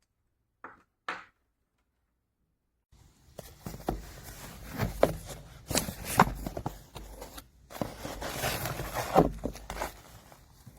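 Two short clicks, then irregular rustling and crinkling handling noise with several sharp knocks, as of things being handled and set down.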